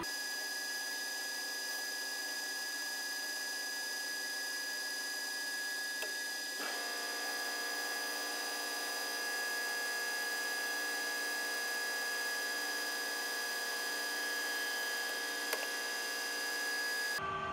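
Metal lathe cutting a large spinning metal disc with a carbide insert tool: a steady cutting hiss under several high, steady whining tones. The tones shift slightly about six seconds in, and there is a small click near the end.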